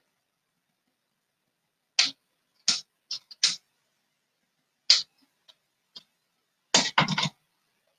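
Glass candle jars being handled and set down: a scattering of sharp clicks and knocks over a few seconds, then a louder clatter of several knocks close together near the end.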